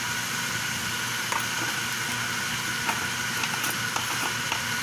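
Steady kitchen background noise, a fan-like hum with a faint high whine, broken by a few light clicks of utensils while seasoning is added to the chicken in the pan.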